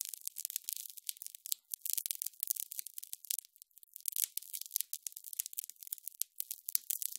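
Electric sizzle: a dense, irregular crackling of many sharp high-pitched snaps, like sparks arcing, with brief gaps where it thins out.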